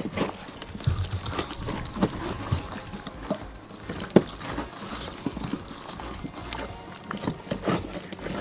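Wet squelching and slapping of hands rubbing an oil-and-spice rub into a raw whole chicken in a stainless steel bowl, irregular, with a sharp click about four seconds in.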